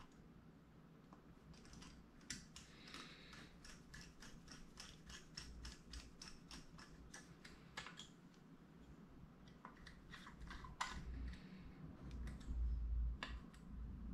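Light clicks and taps of small metal parts being handled and fitted by hand into a Ford flathead V8 carburetor body. There is a quick run of clicks for several seconds, then scattered ones, and a low bump near the end.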